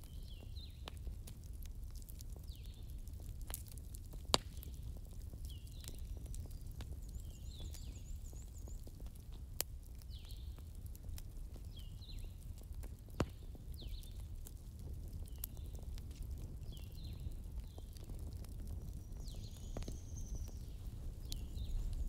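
Log campfire burning: a steady low rush of flames with scattered sharp crackles and pops, the loudest about four, nine and a half and thirteen seconds in. Birds chirp over it, with short falling calls every second or two.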